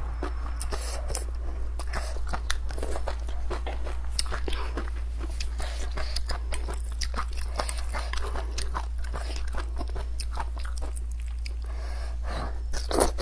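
A person eating stewed sweet potato vermicelli close to the microphone: continuous chewing and mouth smacks made of many quick, irregular clicks, over a steady low hum.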